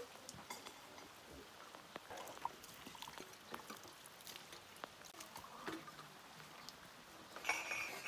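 Water poured from a plastic ewer over a metal pot lid and tea glasses, with light splashing and small clinks of glass and metal. A brief louder sound near the end.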